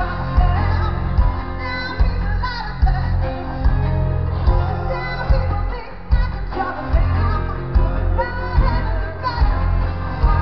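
Live band music over a festival PA, heard from within the crowd: a woman singing over a steady, heavy kick-drum beat.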